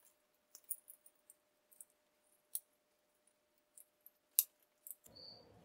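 Small, sharp plastic clicks and taps at irregular intervals from handling a 3D-printed switch holder and its rocker switch as it is pressed onto an aluminium extrusion. The loudest click comes about four and a half seconds in.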